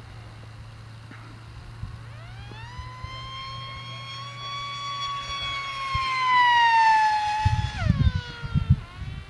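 The electric motor and propeller of a Fun Jet radio-controlled plane whine as it makes a pass. The pitch climbs and the sound grows louder, then sags and drops sharply near the end as the plane goes by. Low rumbling thumps come in near the end.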